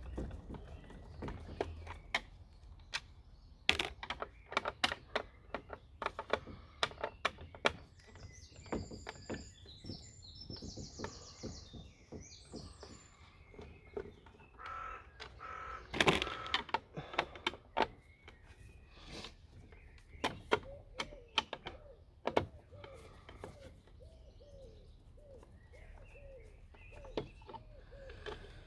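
Screwdriver backing screws out of the Dyson DC04's plastic motor housing: many sharp clicks and knocks of the tool, screws and plastic parts being handled, with bursts of short, squeaky creaks as the screws turn in the plastic.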